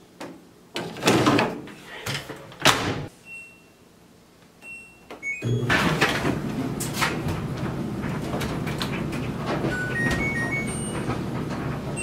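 Laundry being handled at a washer and dryer: knocks, bumps and rustling as clothes are pulled out and a machine door is moved, with a few short electronic beeps. Just over five seconds in a steady rushing sound starts and runs on with scattered short tones over it.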